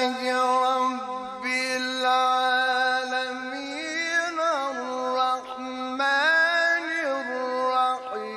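A male Qur'an reciter chanting in the slow, melodic mujawwad style. He holds long, drawn-out notes, with quick ornamental turns in pitch about four seconds in and again about six seconds in.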